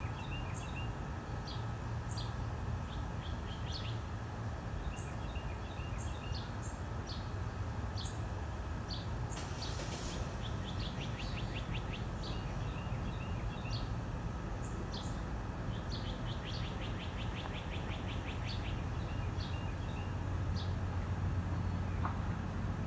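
Small birds chirping on and off, with two rapid trills, one near the middle and another a few seconds later, over a steady low rumble.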